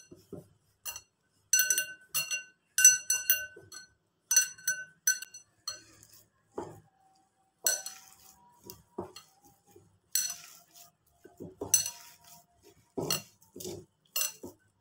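Glass mixing bowl clinking as a hand mixes a crumbly lentil mixture in it: irregular sharp knocks, several a second at times, each leaving the glass ringing briefly.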